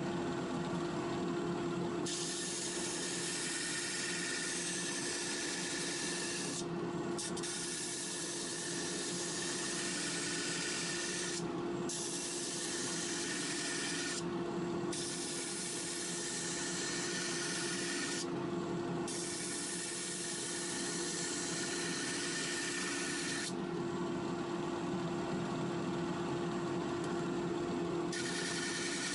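Disc sander running with a steady motor hum while a piece of redgum is pressed against the spinning abrasive disc, giving a hiss of sanding. The sanding hiss breaks off briefly four times as the piece is lifted and turned. It stops for a few seconds near the end, then starts again.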